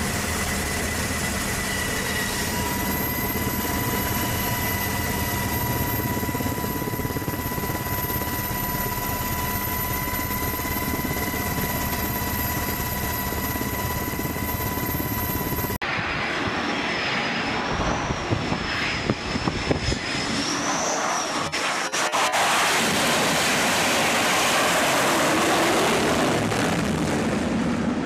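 Aircraft noise. For the first half, a steady turbine whine over a low hum, from the helicopter filming the carrier from the air. After an abrupt cut a little past halfway comes a noisier flight-deck sound that swells into a loud rushing roar for the last several seconds, typical of jet engines at power on a carrier deck.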